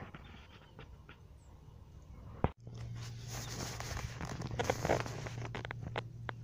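Rustling and scattered clicks of a phone being handled, with a sharp click and a brief dropout about two and a half seconds in. After that a steady low hum runs under louder rustling.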